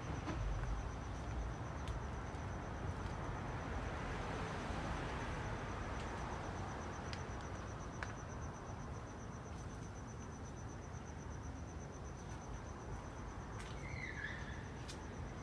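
A cricket trilling steadily, one high, finely pulsing note without a break, over a low rumble and a few soft clicks. Near the end there is one short chirp.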